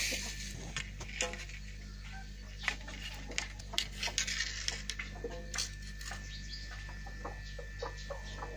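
Scattered light clicks and taps from old fishing gear being handled on a tiled floor: a spinning rod and spinning reels being picked up and set down.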